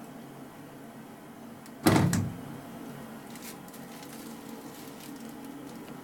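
Plastic detergent drawer of an Indesit WISL103 washing machine pushed shut: a single clunk about two seconds in, over a faint steady hum.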